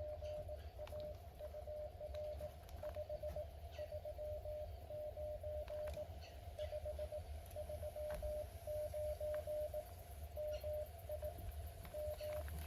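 Morse code (CW) from a Mountain Topper 4B QRP transceiver: a steady mid-pitched tone keyed on and off in dots and dashes, with faint clicks scattered through it.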